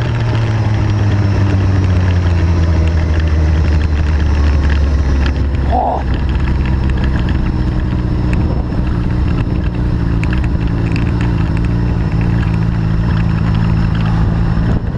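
Motorcycle engine running hard at speed, picked up by a camera mounted low beside the rear wheel. The engine note sinks slightly over the first few seconds and then holds steady, with a brief higher blip about six seconds in.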